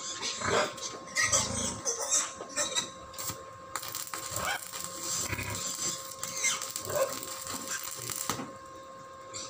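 Electric arc welding on a steel gate bar: the arc crackles in short sputters as it is struck, then holds a steady crackling hiss for about five seconds from around four seconds in, stopping near the end.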